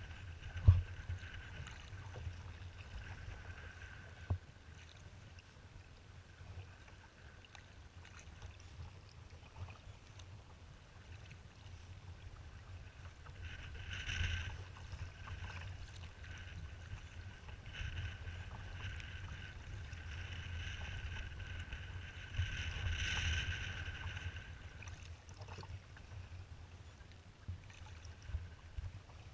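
Kayak moving through choppy water: water splashing against the hull, swelling twice, over a steady low rumble of wind buffeting the microphone. A sharp knock about a second in and a lighter one near four seconds.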